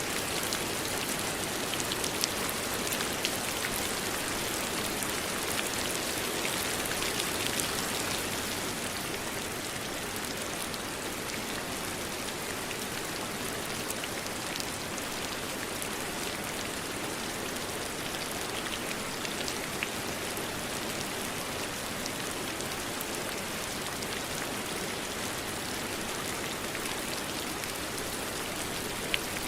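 Steady rainfall with individual drops ticking now and then, heavier for the first several seconds and then settling slightly.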